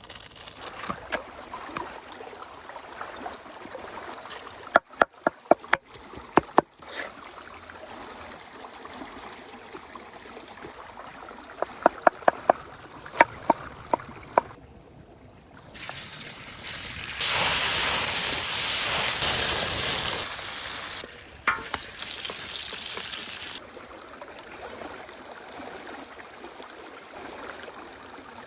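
Outdoor cooking sounds over a steadily running stream: two quick runs of sharp knocks, such as a knife striking a board, then a loud hiss that swells in, holds for several seconds and dies away.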